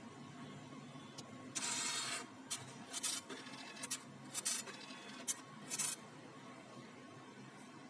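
HP printer mechanism running a test cycle: one longer whirring motor movement about two seconds in, then several short jerky movements over the next few seconds, then only a faint steady hum.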